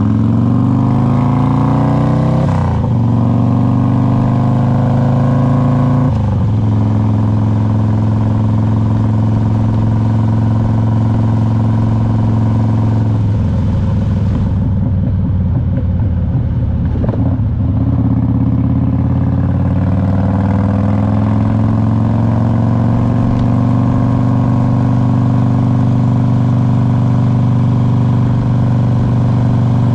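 2001 Harley-Davidson Road King's Twin Cam 88 V-twin engine under way. It revs up through the gears, with two upshifts in the first six seconds, then cruises at steady revs. Near the middle it goes choppier and lower for a few seconds, then settles back into a steady cruise.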